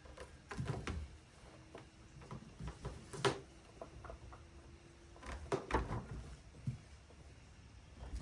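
Handling noise: scattered light knocks, clicks and rubbing as a cord is worked in and out around a trolling motor, with a faint steady hum through the middle.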